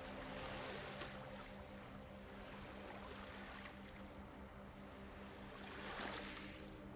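Ambient water sound of gentle waves washing in slow swells, the loudest about six seconds in, over a low steady hum.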